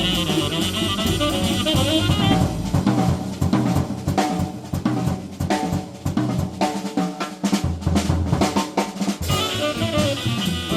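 Live jazz: a tenor saxophone line ends about two seconds in, and the drum kit takes a break alone, with busy snare, rimshot and bass drum strokes. The saxophone comes back in near the end.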